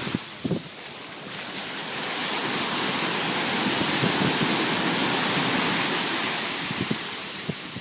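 Ocean surf: a wave swelling and washing in over a few seconds, then fading near the end, with wind buffeting the microphone.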